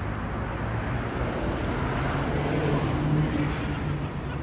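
A road vehicle passing close by on a city street: its engine hum and noise swell to a peak about three seconds in, then fade.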